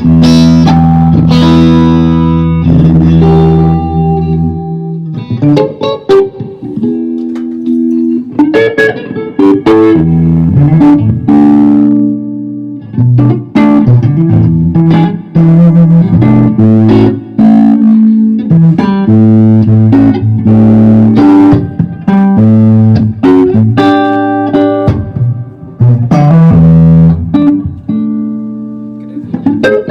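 Electric guitar played through an Orange Super Crush combo amplifier, with a run of chords and riff phrases and frequent sharp picked attacks, some notes left to ring.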